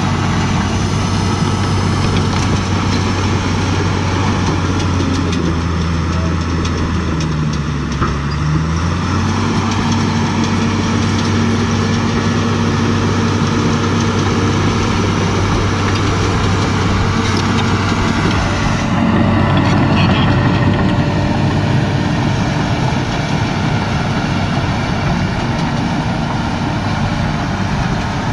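Diesel engine of heavy earthmoving equipment running steadily. Its pitch sags for about two seconds around seven seconds in, as if lugging under load, then picks back up.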